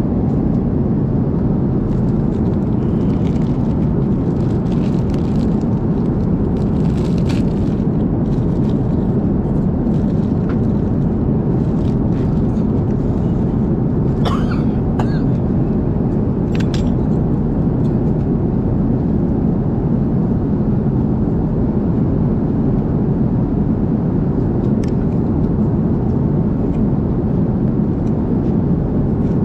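Steady cabin noise of an airliner in flight: a constant low rush at an even level. A few faint clicks and rustles come about halfway through.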